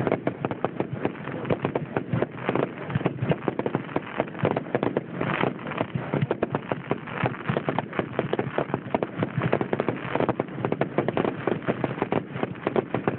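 Aerial fireworks bursting in quick succession: a dense, unbroken run of pops and bangs.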